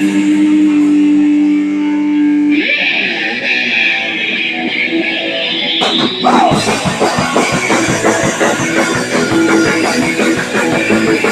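Live punk rock band: an electric guitar rings out on a held chord, changes chord about two and a half seconds in, and about six seconds in the drum kit crashes in and the full band plays on together.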